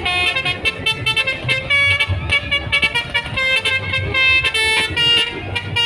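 Telolet horn playing a fast tune: a quick run of short, bright, pitched horn notes changing from one to the next, over a low rumble. The horn stops near the end.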